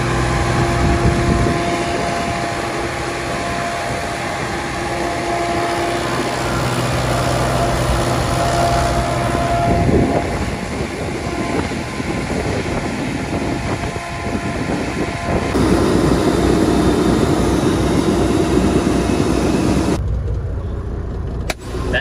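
Shelled corn pouring out through the bottom hopper of a semi grain trailer into the unloading pit: a steady rush of kernels over a constant machinery hum. Near the end it drops to a quieter truck-cab sound with a sharp click.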